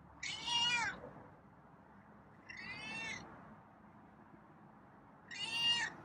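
Feral domestic cat meowing three times: short, high calls about two and a half seconds apart.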